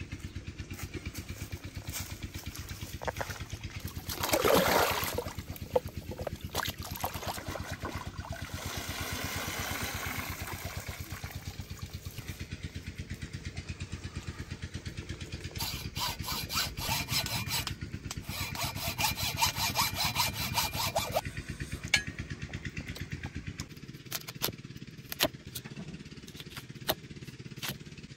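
A small engine running with an even, regular beat, growing louder for a few seconds in the middle. Near the end come sharp knocks of a cleaver chopping on a wooden block.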